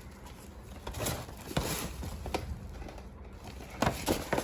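Toy packaging being handled: a scatter of light taps, clicks and rustles of cardboard and plastic, with a quick cluster of clicks near the end.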